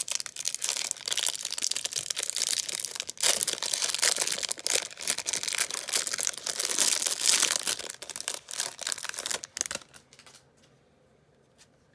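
Clear plastic wrap being torn and peeled off a stack of Topps baseball cards, a dense crinkling and tearing that stops about ten seconds in.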